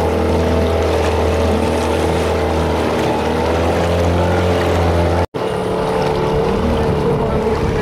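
A small boat's motor running steadily underway, a low hum with a steady higher tone above it, over wind and water noise. The sound drops out for an instant about five seconds in and comes back with the low hum slightly changed.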